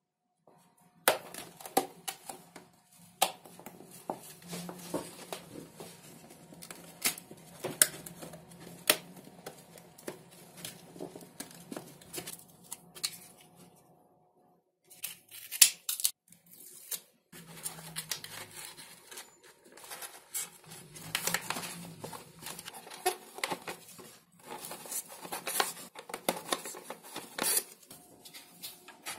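Close-up handling of small model parts: irregular sharp clicks and scrapes, and adhesive tape being pulled from the roll and wrapped around a small radio receiver. The sounds stop briefly about fourteen seconds in.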